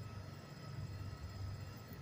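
Outdoor background: a steady low rumble with a few faint, steady high tones above it, and no distinct event.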